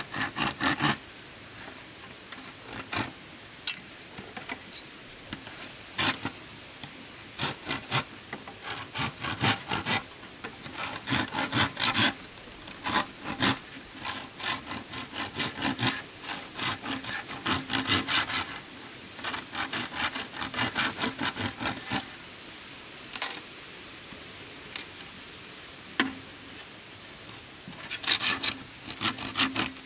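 Hand saw cutting through wood in short runs of quick rasping strokes, broken by pauses.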